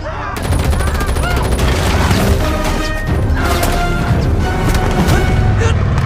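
Action-film battle sound mix: rapid gunfire and booms under a dramatic music score, with shouting voices in the first second or so.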